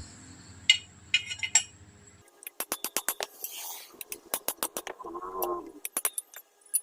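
Rapid metal-on-metal tapping, a few light clicks and then quick runs of sharp strikes at about four or five a second, as a new steering head bearing cup is driven into the motorcycle's head tube through the old cup with a spanner.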